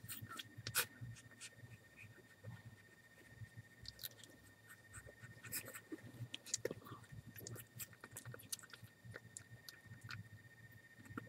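Two-week-old American Hairless Terrier puppies suckling at their mother: faint, irregular wet clicks and smacks, with soft rustling of bedding.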